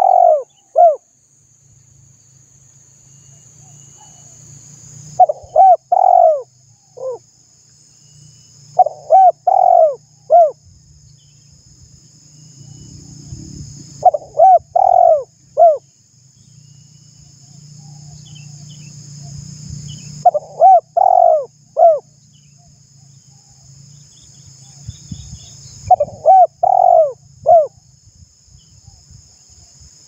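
Spotted dove cooing: phrases of three to four short coos, repeated about every five to six seconds.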